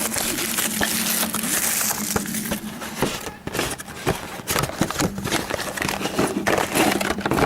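Packaging crinkling and tearing in quick, irregular crackles as a sealed sports-card box and its packs are opened by hand.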